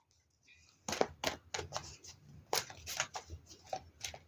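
Tarot cards being shuffled and handled: a run of irregular crisp clicks and snaps of card stock, starting about a second in.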